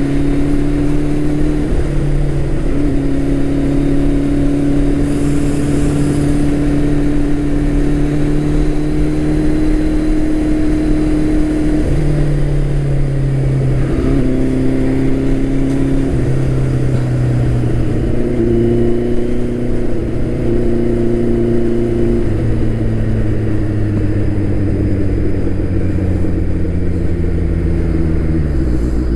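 Turbocharged Suzuki Hayabusa inline-four engine and exhaust running loud while the motorcycle is ridden. Its steady note steps up and down in pitch several times as speed and throttle change.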